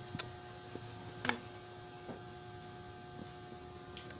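Faint steady hum with a few scattered light clicks and taps; the sharpest click comes about a second in.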